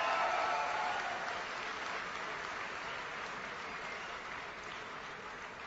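Audience applauding in an auditorium, the clapping slowly dying away.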